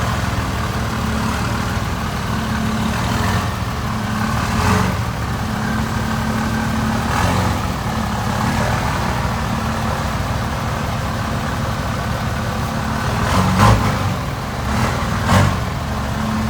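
Third-generation Dodge Ram's Cummins turbo-diesel engine idling steadily while warming up after a cold start, with two brief louder swells near the end.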